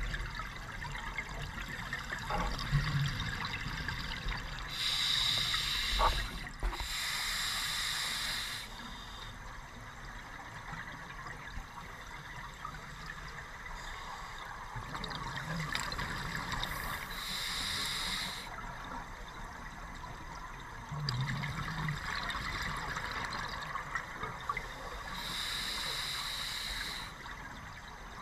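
Open-circuit scuba regulator exhaust underwater: bursts of exhaled bubbles, each one to two seconds long, coming several times between breaths over a steady hiss.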